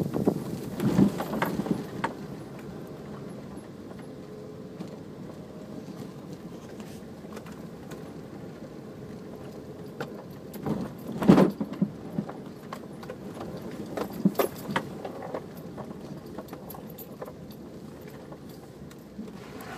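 Off-road vehicle driving over rough ground, its engine running steadily under rattling and jangling as it jolts. Loud clunks come in the first couple of seconds, about eleven seconds in and again around fourteen seconds.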